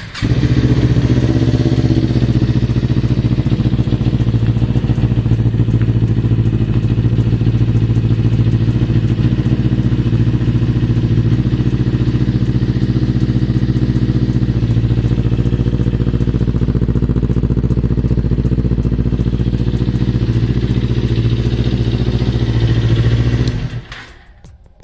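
Motorcycle engine idling steadily through its old exhaust pipe, heard as a sound check before the pipe is replaced; it cuts off near the end.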